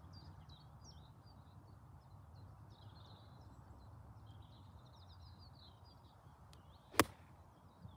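One sharp click of a 56-degree wedge striking a golf ball on a three-quarter pitch shot, about seven seconds in, over faint birdsong.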